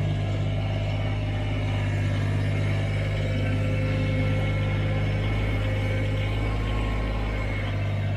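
Engine of a piece of heavy equipment running steadily at a constant speed, with a strong low hum.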